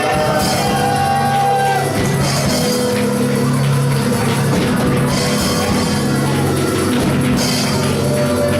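Live church praise music from a band with drums, playing steadily and loudly.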